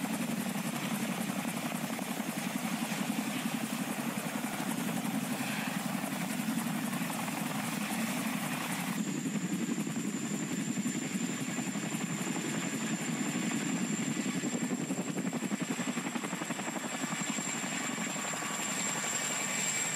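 Helicopter sound effect: rotor blades beating rapidly and steadily over engine noise, with a thin high whine setting in about halfway through.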